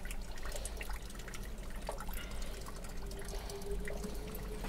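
Hot water trickling and dripping from a Megaflo unvented cylinder being drained while its old brass temperature and pressure relief valve is unscrewed, with light scattered clicks.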